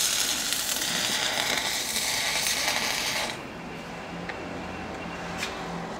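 Electric welding arc crackling steadily as a bead is laid, then cutting off suddenly a little over three seconds in, leaving a faint hum and a couple of light ticks.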